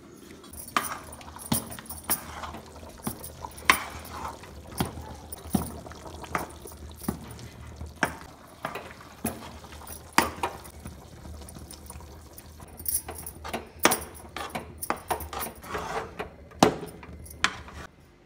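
Stiff finger-millet dhedo being stirred in a steel pot with a flat metal spoon: regular knocks and scrapes of the spoon against the pot, about one every three-quarters of a second, with the wet slap of the thick dough, over a low steady hum.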